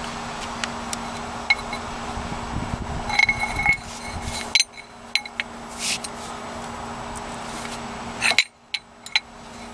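Metal clinks and knocks of a breaker bar with a 19 mm socket being worked on the serpentine belt tensioner bolt. A short metallic ring comes about three seconds in, then scattered clicks, over a steady low hum.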